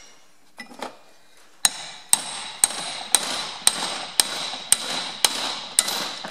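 Hammer blows on a small cold chisel against the drilled bearing retaining collar on a Ferguson TE20 rear axle half shaft, splitting the collar off. A few light taps, then about ten sharp ringing metal strikes at roughly two a second.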